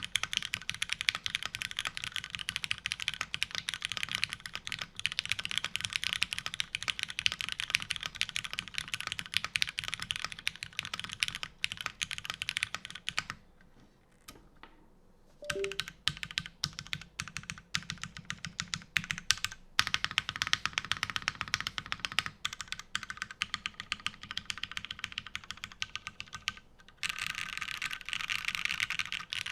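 DN 997.3 custom mechanical keyboard with an aluminium plate, lubed vintage Cherry MX Black linear switches and GMK keycaps, being typed on fast: a dense run of keystroke clacks. About halfway through the typing stops for roughly two seconds, then comes back as scattered single key presses before fast typing resumes.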